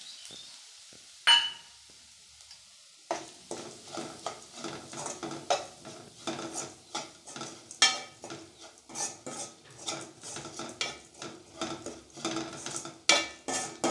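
Slotted metal spatula scraping and knocking against an aluminium kadai while stirring a dry ground coconut-and-spice mixture. One sharp clank about a second in, then from about three seconds in a steady run of quick scrapes and knocks, a few each second.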